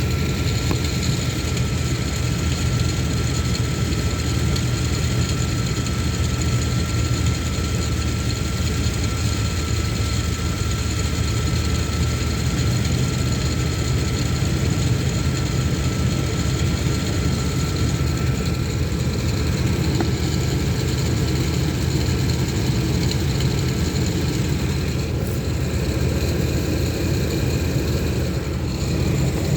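Engine running with a steady low rumble and a thin, steady high whine from the belt-driven pulleys, which the owner suspects comes from a bad pulley. The whine fades about two-thirds of the way through.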